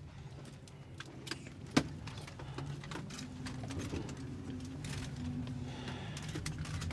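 Quiet backstage room sound: a low steady hum with scattered clicks and rustles, and one sharp click about two seconds in.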